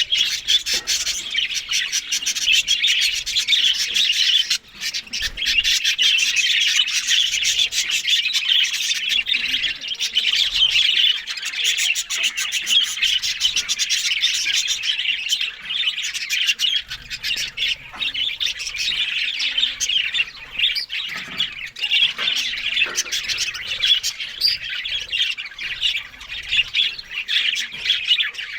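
A flock of budgerigars chattering, chirping and squawking without a break, many birds calling at once.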